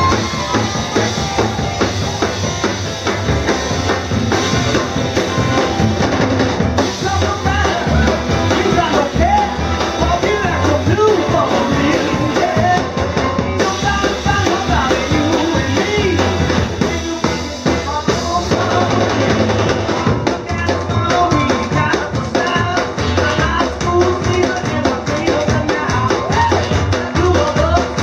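Live rock and roll band playing: a drum kit keeps the beat under upright bass and electric guitar, the full band sounding steadily with no pause.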